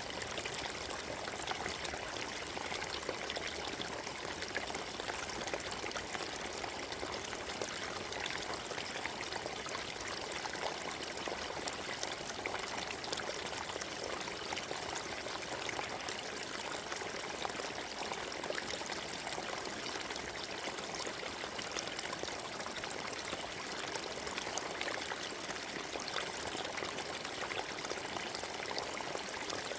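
Forest stream flowing, a steady, even rush and trickle of water over stones with no change.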